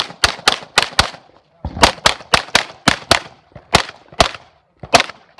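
Pistol fired in rapid strings, about fifteen sharp shots at roughly four a second. There is a short pause about a second in, and the last few shots near the end come more widely spaced.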